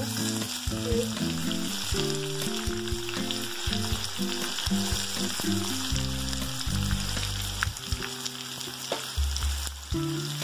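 Chopped onions frying in hot oil in a kadhai with mustard seeds, cumin and curry leaves, with a steady sizzle.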